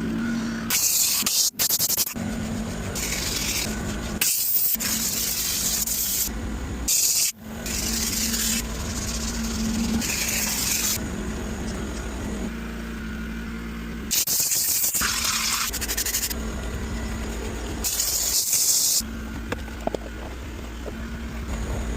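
Car-interior detailing work in short cut-together clips: repeated hissing sprays lasting a second or two each over a steady machine hum, with several abrupt cuts between them.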